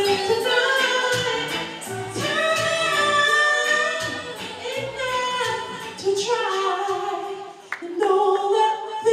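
A woman singing a song live into a handheld microphone, holding long notes, over a backing track whose low bass notes drop out about six seconds in, leaving mostly her voice.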